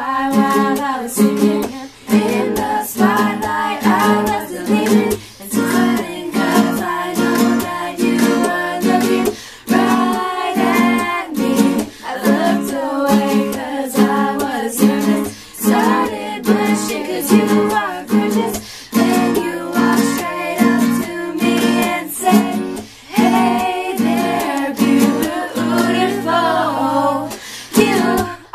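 A group of girls singing a song together to a strummed acoustic guitar.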